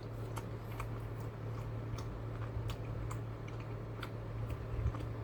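Close-miked chewing of a rice and bean burrito: irregular soft wet clicks from the mouth, over a low steady hum.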